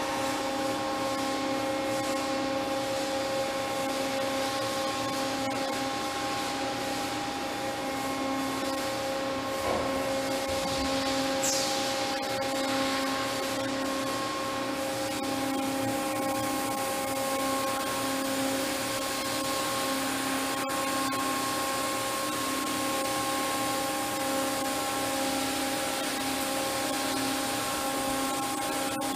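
KAFO KG-10080 gantry five-axis machining center running through an automatic head change: a steady machine whine of several pitched tones over a constant hiss. A short hiss falls in pitch about eleven seconds in.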